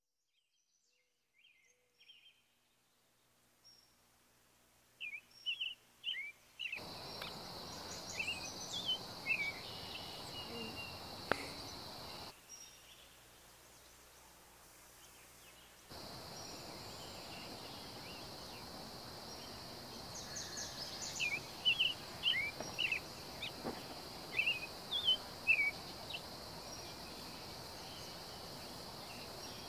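Several songbirds chirping and singing in short, repeated phrases over outdoor background noise, with a steady high-pitched hum under them for most of the stretch. The sound fades up from near silence over the first few seconds.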